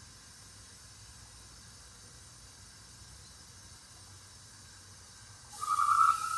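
Faint steady hiss, then near the end a gas meter suddenly starts sounding a loud, steady high tone that keeps getting louder. The noise comes from the gas supply pipe being too small for the flow.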